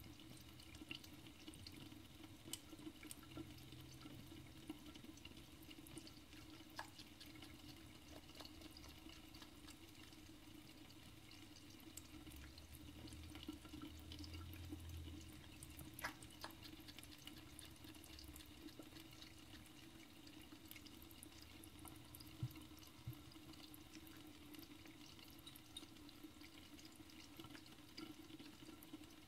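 Faint trickle of a thin stream of water from a bathroom faucet running into the sink, with scattered small drips and ticks over a low steady hum.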